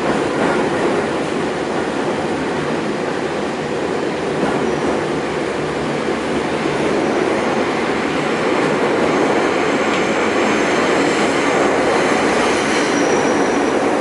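Nagano Electric Railway 8500-series train heard from inside the car while running: a steady rumble of wheels on rails. In the second half, faint high-pitched squealing joins in.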